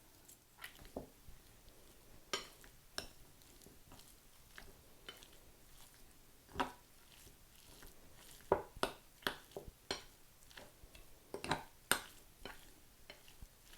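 A utensil stirring a thick cream cheese and shredded chicken filling in a mixing bowl, knocking and scraping against the bowl in irregular clicks, with a few louder knocks in the second half.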